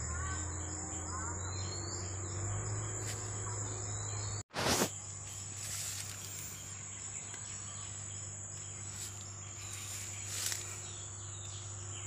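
Insects buzzing in a steady high-pitched drone, with a few bird chirps in the first second or two and a low steady hum underneath. About four and a half seconds in the sound cuts out for an instant and comes back with a short loud rush.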